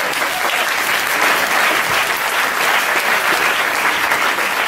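Theatre audience applauding, dense and steady.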